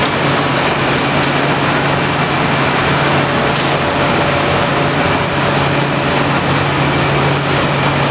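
Veneer roller dryer running: a steady, loud machine drone with a low hum under it and a few faint clicks.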